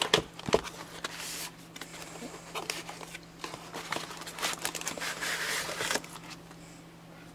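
Hands opening a cardboard phone box: a few sharp taps and scrapes of the card near the start, then rustling of the clear plastic wrap over the inner tray that dies away about six seconds in.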